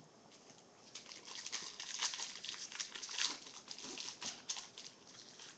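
A plastic trading-card pack wrapper crinkling and rustling in the hands as the pack is opened and the cards are handled. It is a quick run of crackles that starts about a second in and dies down near the end.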